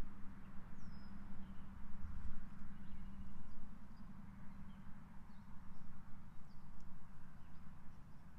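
Outdoor ambience: faint, scattered short bird chirps over a low steady rumble.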